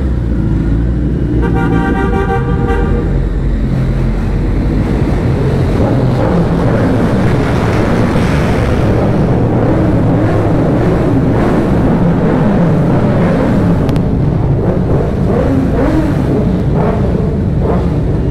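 Several big sport motorcycles revving hard inside a concrete underpass, the exhaust noise echoing off the walls, at its loudest midway. A horn toots once, about a second and a half in.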